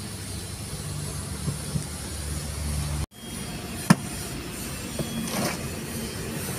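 Steady low hum of an engine idling in the background. It briefly cuts out about three seconds in, and there is a single sharp click about a second later.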